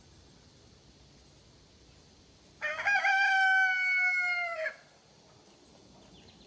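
A rooster crowing once, a single cock-a-doodle-doo of about two seconds that rises briefly and then holds a long, slightly falling note.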